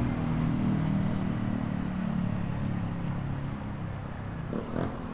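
Motor-vehicle engine in nearby road traffic, a low steady hum that slowly drops in pitch and fades, over road and wind noise.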